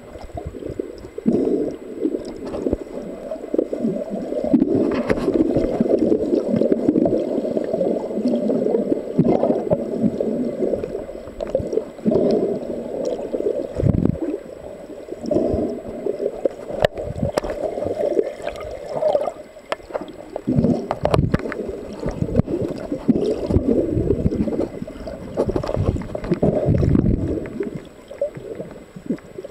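Muffled underwater sound picked up by a submerged camera: water gurgling and sloshing around the camera body, rising and falling as it moves, with a few sharp knocks and clicks scattered through.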